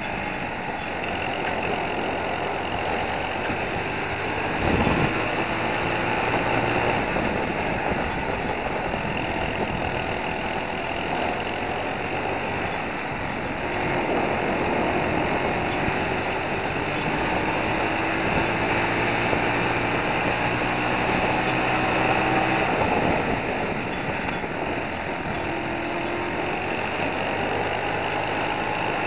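World Formula kart's Briggs & Stratton four-stroke single-cylinder engine under racing load, heard onboard: the revs climb slowly along each straight and fall away into the corners, several times over, with wind noise across the microphone. A thump about five seconds in.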